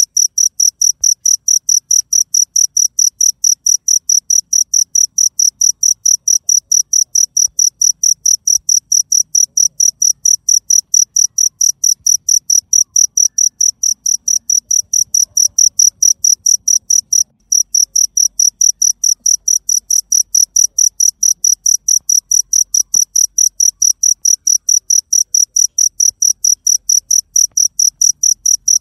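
A cricket chirping loud and steady: an even string of high-pitched chirps repeated several times a second, briefly cutting out about two-thirds of the way through.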